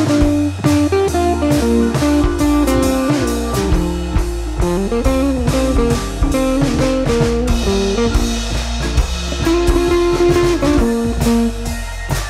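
Instrumental background music: guitar over a bass line and drum kit, with a steady beat.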